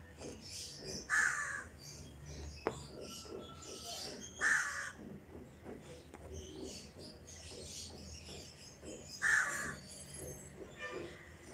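A bird calling: three short calls spaced a few seconds apart, over faint ticks and rustling.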